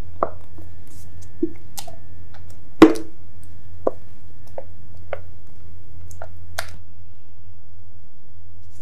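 Scattered light clicks and taps of a spatula and glass bowl against glass as thick cake batter is scraped into a glass loaf pan, with soft squishes of batter. The loudest is a sharp clink about three seconds in. A steady low hum sits underneath.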